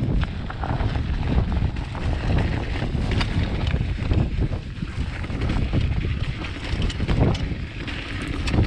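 Wind buffeting the microphone while a mountain bike rolls over a rough dirt trail, with frequent short clacks and rattles from the bike. The chain is slapping the chainstay, which has its protector off.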